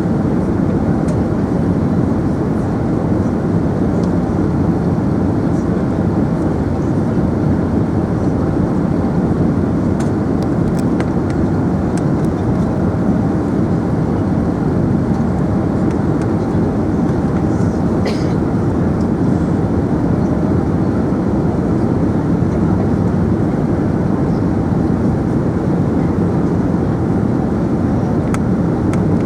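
Steady rumble of engine and airflow noise inside the cabin of an Emirates Airbus A380, even in level throughout, with a few faint clicks.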